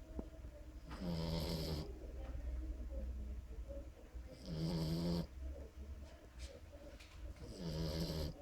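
Snoring in sleep: three loud pitched snores, each under a second long and about three and a half seconds apart, with a quieter breathing sound between them.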